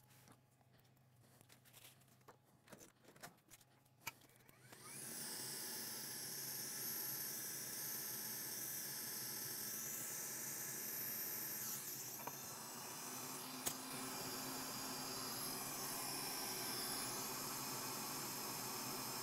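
A few light handling clicks, then a small electric motor starts about five seconds in and runs steadily with a high whirring hiss.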